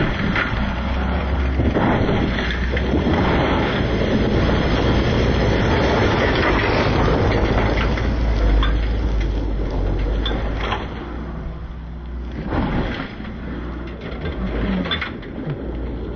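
Rally car engine and tyre noise heard from the stage side: a rough, noisy rumble with a steady low drone and a few sharp cracks, easing after about ten seconds.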